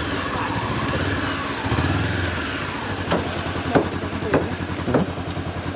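Motorcycle engine running steadily at low revs, swelling slightly about two seconds in. Four short, sharp ticks come about half a second apart in the second half.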